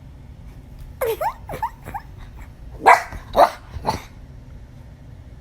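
Chihuahua making a few short whining yelps, then three sharp barks about half a second apart.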